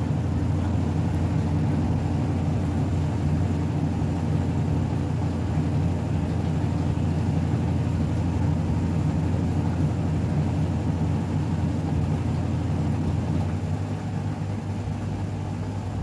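Mademsa 9.5 kg top-loading washing machine in its spin cycle: a steady low hum of the motor and the spinning drum. It quietens and drops slightly in pitch near the end.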